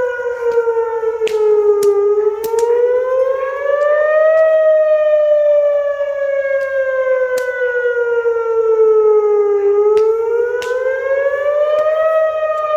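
Loud fire siren wailing, its pitch falling and rising in slow sweeps of several seconds. It is probably sounding to call out the volunteer fire department.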